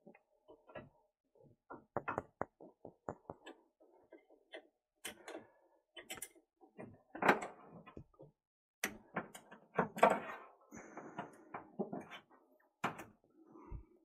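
Steel pick clicking and scraping inside a brass boiler valve housing, working at the broken plastic cartridge stuck in it: irregular small clicks and scrapes, a few louder ones about seven and ten seconds in.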